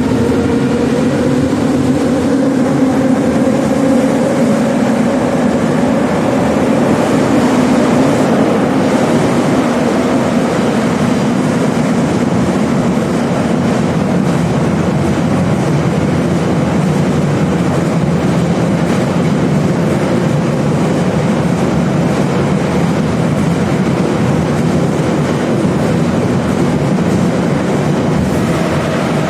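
81-717/714 'Nomernoy' metro train running through the tunnel, heard from inside the car. Over the first few seconds the traction motors whine and rise in pitch as the train speeds up, then they blend into a steady loud rumble of wheels on rail.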